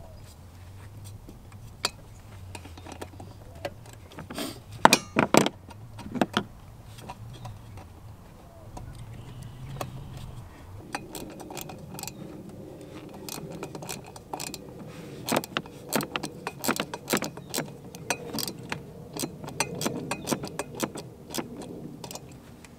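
Hand ratchet clicking in quick runs as a hose clamp on the silicone intake coupler is tightened, with scattered metal clicks and a few knocks from handling the tool and clamp. The clicking comes thick and fast in the second half.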